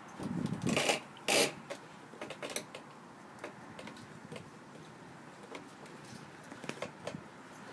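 Phone microphone handling noise: fabric of a fleece jacket and blanket rubbing and bumping against the phone. There is a loud burst of rustling in the first second and a half, then scattered light clicks and scuffs.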